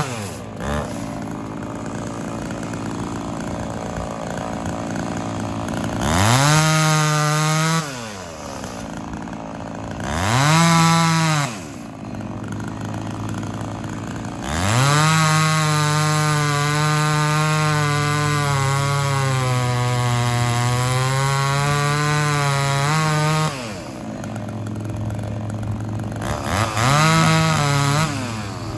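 Chainsaw idling between short bursts of full throttle. Near the middle it runs at high revs for several seconds, its pitch sagging and recovering as though pulling through a cut.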